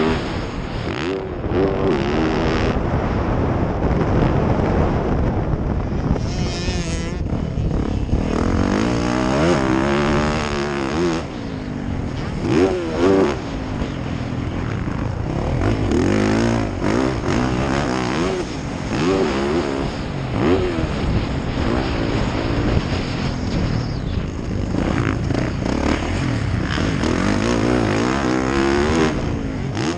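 Dirt bike engine revving hard through the gears while riding a motocross track. The engine pitch repeatedly climbs and drops as the throttle opens and shuts over jumps and into corners.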